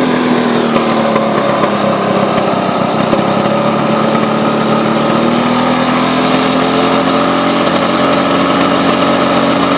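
Lawn-Boy 8241AE mower's two-stroke engine running steadily just after a cold start. Its speed sags a little early on, then climbs back up from about halfway through.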